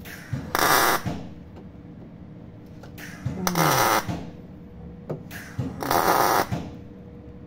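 MIG welder laying short stitch welds along a lapped steel repair panel on a car's wheel arch. Three bursts of crackling arc, each under a second long, with quieter pauses between them.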